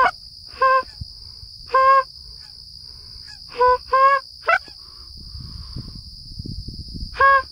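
Short single honks of Canada geese, about seven in all, some coming in quick pairs, over a steady high-pitched insect trill.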